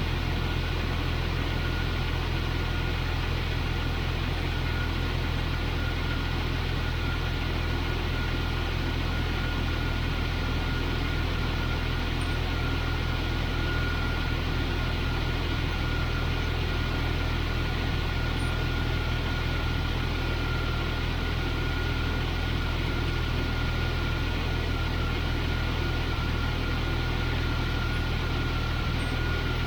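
Jeep XJ engine idling steadily, with a thin, steady whine running over the low hum.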